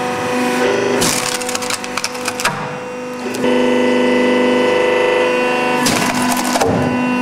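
Hydraulic splitting press humming steadily as its wedge blade is forced down into an oak billet, splitting it along the grain. The wood cracks and splinters about a second in, again around two and a half seconds in, and near the end. The machine's hum gets louder and fuller from about halfway through.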